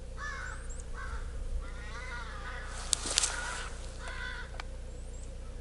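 Crows cawing, about five harsh calls spread over a few seconds, while they mob a hawk. A single sharp click about three seconds in.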